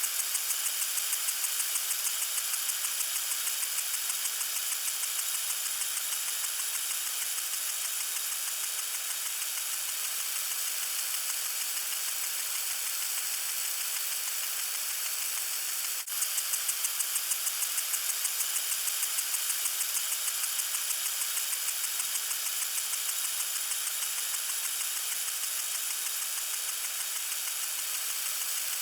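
Water sprinkler spraying: a steady high hiss with a fast, even pulsing, briefly dipping and picking up again about halfway through.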